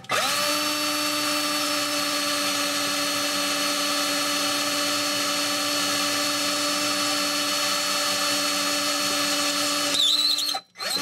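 Cordless drill running at a steady speed, a small bit drilling through the head of a screw in the oven's steel back panel to remove it, because the screw is too tight to undo. The drill spins up at the start, runs evenly, then stops briefly near the end and starts again.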